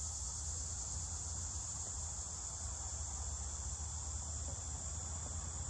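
A steady, high-pitched chorus of insects chirring without a break, over a low rumble.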